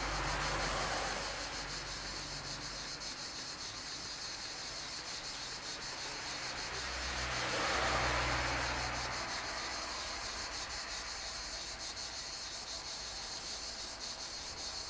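Insects chirring steadily, a high shrill sound with a fast pulse running through it. A soft rushing swell comes near the start and a louder one a little past the middle.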